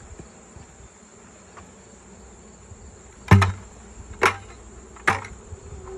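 Three sharp knocks about a second apart, the first the loudest, as a plastic bucket of shaken-off honeybees is rapped against the hive box to dump the bees back in, over the buzzing of the bees.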